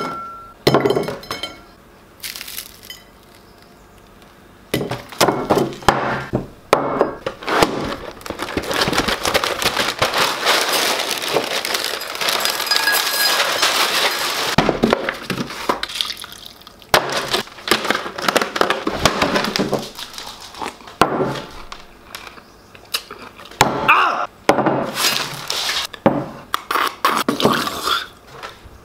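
Dry breakfast cereal poured from a bag into a bowl: a long rattling pour lasting several seconds as the pieces spill and scatter across a wooden table, with clinks and knocks of dishes before and after.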